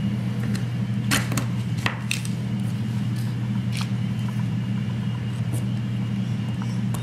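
Light clicks and taps of a small metal laser pointer being pushed into and seated in a 3D-printed plastic holder, a handful of sharp ticks spread over a few seconds, over a steady low hum.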